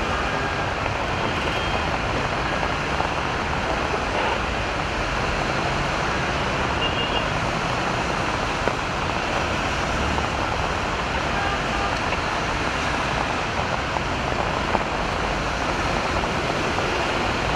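Dense, slow-moving road traffic on a rain-wet highway: a steady mix of engines running and tyres hissing on wet asphalt.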